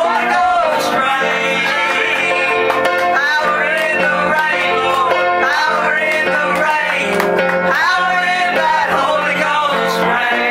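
A country-style gospel song: a voice singing over guitar accompaniment.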